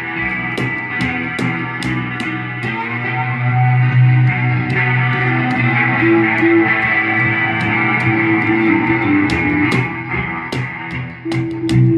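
Rock music led by electric guitar over a bass line, with a steady beat of sharp percussion hits.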